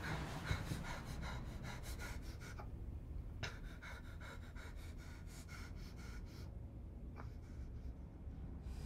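A frightened boy's rapid, shallow panting breaths, quick and uneven, breaking off about two and a half seconds in and again about six and a half seconds in.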